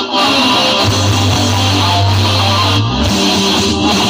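Loud guitar-led music blasting from a stacked parade sound system of homemade wooden speaker cabinets and horns, with a deep bass note held for about two seconds in the middle.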